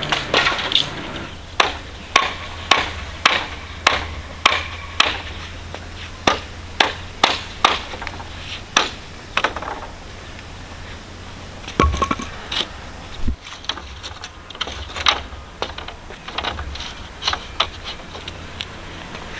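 Bamboo being handled and knocked together: a series of sharp wooden clacks, about two a second for the first half, then more scattered. A single dull thump comes about twelve seconds in.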